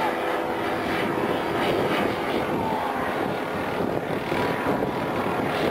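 Engines of radio-controlled model aircraft flying in formation overhead, a steady buzz with one faint falling whine as a plane passes.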